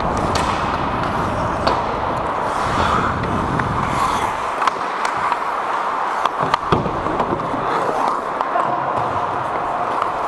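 Ice hockey play: skate blades scraping and gliding on the ice, with a few sharp clacks of sticks and puck, the loudest a pair about six and a half seconds in.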